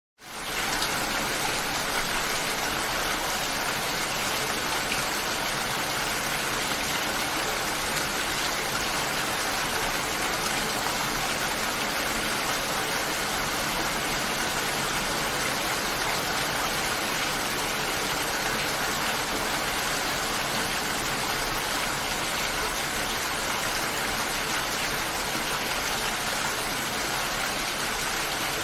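Steady heavy rainfall, a dense, even hiss that fades in from silence at the very start and then holds level.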